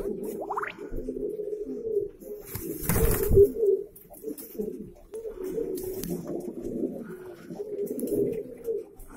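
Valenciano antiguo pigeons cooing in low, rolling calls throughout, with a loud flurry of wing flapping about three seconds in.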